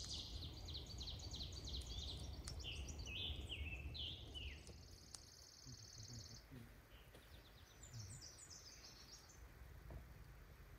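Songbirds singing. First comes a quick series of high notes, then a few falling slurred notes, then a high, even trill lasting about two seconds, and more high chirps near the end. A low rumble runs under the first half.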